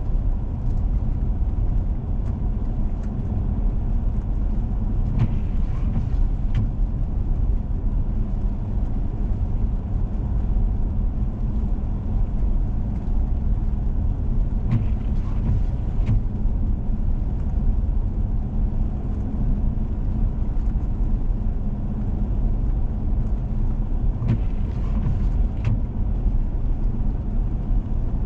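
Four-wheel-drive vehicle driving on a snowy road: a steady engine hum and low tyre and road rumble. Three short brighter noises come about ten seconds apart.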